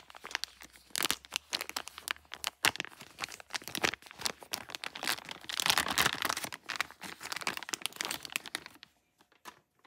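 Packaging crinkling and crackling as it is handled, a dense run of sharp rustles that is loudest midway and stops about a second before the end.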